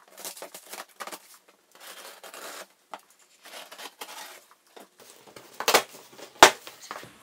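Cardboard shipping box being opened by hand: scattered scrapes, rustles and tearing of tape and cardboard, with two loud sharp snaps near the end, under a second apart.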